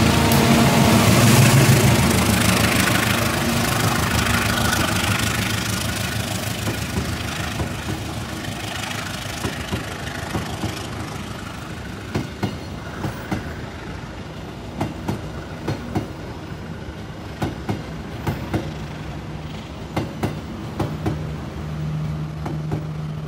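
A diesel-hauled crane train passes. The locomotive's engine is loud at first and fades away, then the wheels clack over the rail joints as the wagons roll by. A steady low engine hum comes in near the end.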